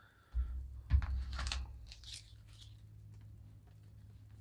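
Trading cards and pack wrapper being handled: two soft knocks about half a second and a second in, then light rustling and clicking that fades away.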